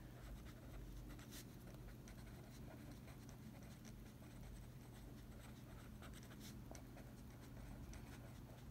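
Faint scratching of a pen writing on paper, in short irregular strokes, over a steady low hum.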